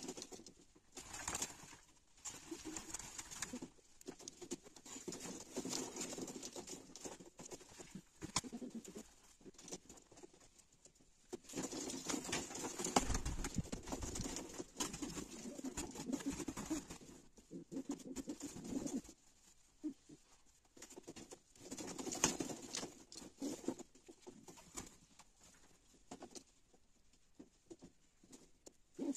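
Racing pigeons cooing in stretches of a few seconds, with light clicks and taps in between.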